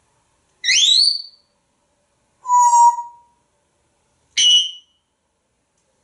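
African grey parrot whistling three separate calls: a rising whistle about half a second in, a steady beep-like tone near the middle, and a short high chirp near the end.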